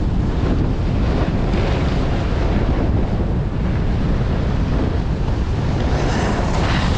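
Strong gusting wind buffeting the microphone, a steady loud rumble with hissier swells coming and going.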